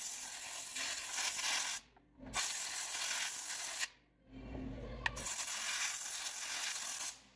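Compressed-air blow gun blasting sawdust out of a chainsaw's flywheel and starter area: a loud hiss in three long bursts with short breaks between, and one sharp click about 5 seconds in.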